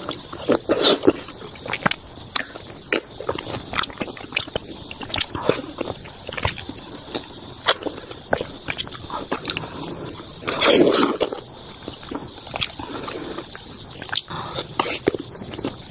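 Close-miked eating of large, very juicy grapes: wet biting, chewing and lip smacks in irregular small clicks, with one louder, longer mouth sound about eleven seconds in.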